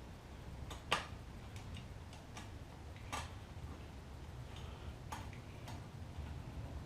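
A few sharp, light clicks of metal tools and parts being handled, about two seconds apart, over a low steady hum.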